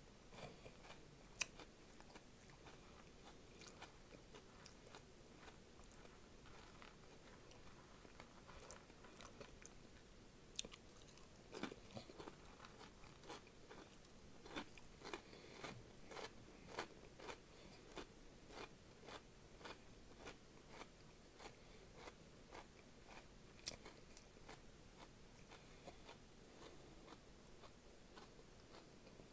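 Flamin' Hot Cheetos being bitten and chewed close to the microphone: faint, irregular crisp crunches, coming thickest in the middle stretch, with a few sharper single snaps.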